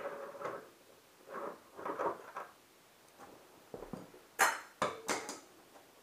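Hand ratchet clicking in short strokes as the plastic front fender's last screws are backed out, then a few sharp clacks of the loosened fender and parts being handled near the end.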